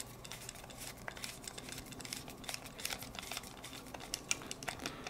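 Small screwdriver turning a screw into the plastic chassis of a Plarail toy train to fasten its shell, with faint, irregular clicks and ticks of metal on plastic.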